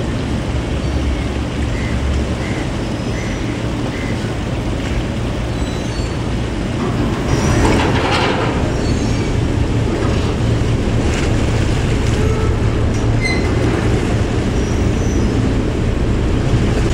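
Passenger ferry Marine Hawk 3's engines running steadily alongside the pier, a low continuous hum and rumble, with a brief louder rushing swell about halfway through.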